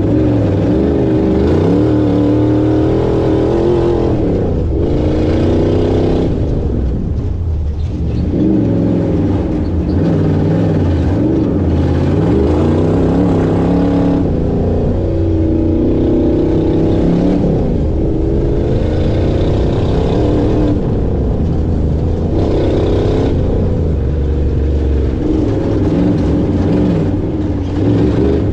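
Off-road race car's engine heard from on board, running hard with its pitch rising and falling over and over as it accelerates and backs off along a dirt track.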